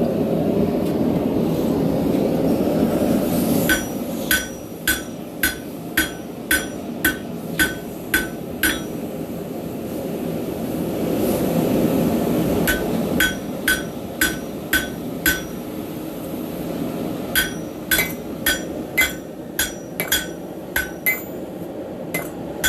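Hand hammer striking a railroad spike on a Hay Budden anvil, each blow a short ringing clink, in three runs of steady blows about two a second with pauses between them. A steady rushing noise runs underneath, loudest for the first few seconds before the hammering starts.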